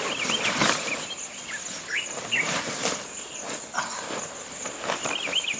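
A steady high-pitched insect drone runs throughout, with birds chirping in short quick calls. Repeated brief rustling noises come through it, like leaves or gear being handled.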